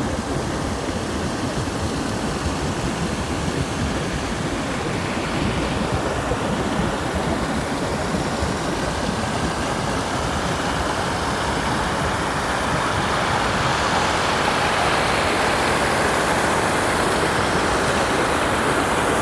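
Steady rushing outdoor noise with no speech, growing a little louder and brighter in the second half and cutting off suddenly at the end.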